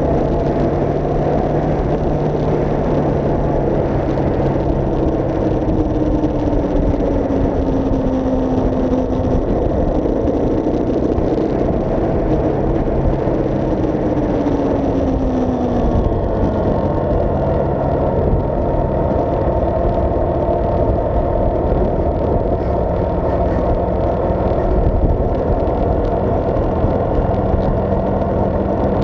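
Onboard sound of a vehicle driving on a paved road: a steady engine hum under wind and road noise, with the engine note sliding down in pitch twice in the first half.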